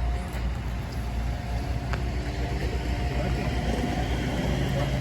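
Heavy diesel engines idling steadily with a deep low rumble.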